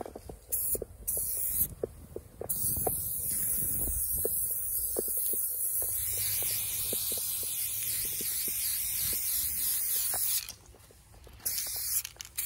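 Aerosol spray-paint can spraying: two short bursts, then one long spray of about eight seconds that stops suddenly, then a few more short bursts near the end. Scattered light knocks sound underneath.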